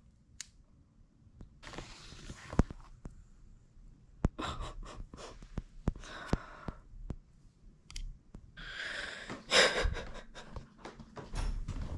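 Clicks and rustling of toiletries and plastic bottles handled in an open suitcase, with a loud breath or sigh about nine seconds in.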